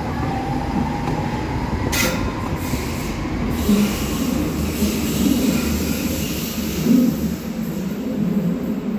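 Stuttgart Stadtbahn light-rail train running along the platform of an underground station: a steady rumble of wheels on rails, echoing in the station, with a short sharp high sound about two seconds in.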